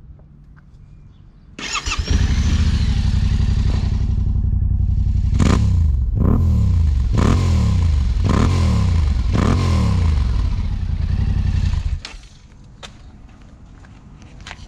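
Twin-cylinder adventure motorcycle with an Akrapovic exhaust starting up, idling, then revved in five quick blips that fall back to idle each time before it is switched off about 12 seconds in.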